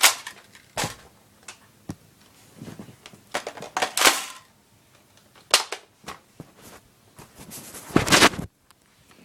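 Hard plastic clicks and clacks from a jammed Nerf Stampede blaster being worked on by hand, scattered and irregular, with a few short louder bursts of rattling about four and eight seconds in.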